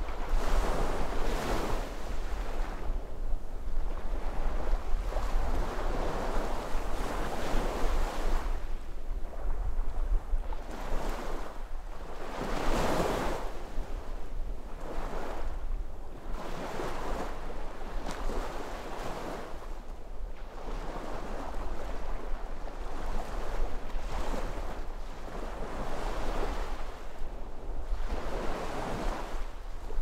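Sea waves breaking and washing on the shore, one swell after another about every two seconds, the loudest about 13 seconds in. A steady low rumble of wind on the microphone runs under them.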